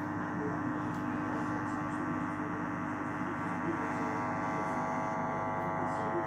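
Hotpoint NSWM843C washing machine running with a steady hum made of many held tones, the abnormal running noise that its owner calls terrible chugging.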